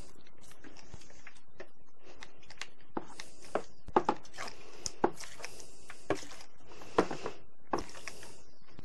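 Hand-pumped pressure brine injector forcing curing brine through its needle into a bone-in pork loin, in short hissing squirts with sharp clicks about once a second.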